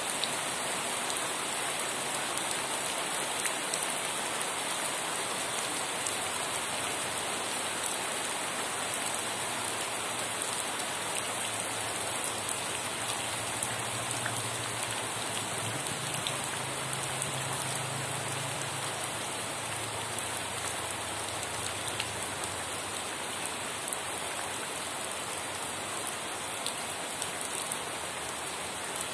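Steady heavy rainfall, an even hiss of rain with individual drops ticking here and there. A faint low hum comes and goes in the middle.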